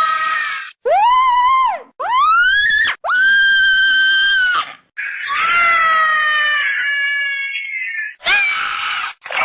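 Scrat, the Ice Age cartoon squirrel, letting out a string of high-pitched screams and shrieks: about five separate cries, one rising then falling, one sweeping up, a long held one, a long wavering one that falls, and a short one near the end.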